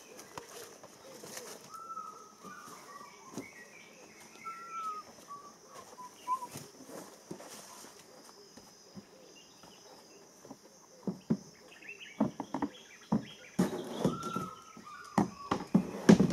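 Birds calling in short whistled notes and twitters, over a steady high-pitched buzz. From about two-thirds of the way in come a string of knocks and scuffs as a canoe seat is handled and set down in a mokoro canoe, the loudest knocks near the end.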